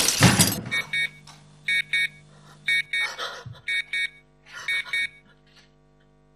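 A loud smashing crash, then a steady electronic alarm beeping: two quick high beeps about once a second.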